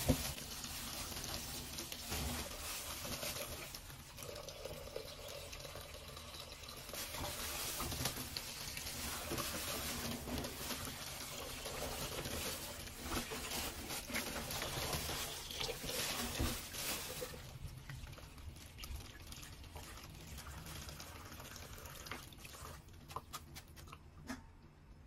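Tap water running into a stainless steel sink while hands rub and jostle fresh mussels in a water-filled plastic bag. The flow weakens about two-thirds of the way through, and a few sharp clicks come near the end.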